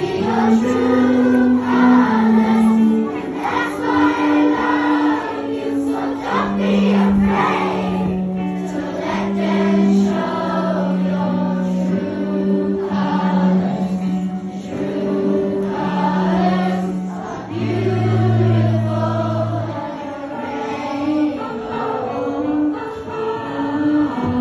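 Children's choir singing a slow song with long held notes.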